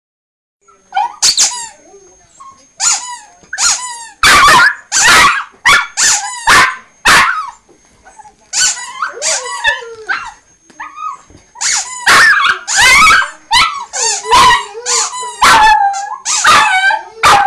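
Small dog barking loudly, short high-pitched barks fired in quick runs of several at a time, with a couple of brief pauses.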